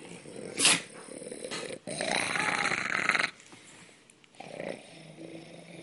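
A dog's voiceless, raspy huffs: a short sharp one about a second in, then a longer hoarse breath and a small one near the end, air pushed out where a bark should be, with little or no voice to it.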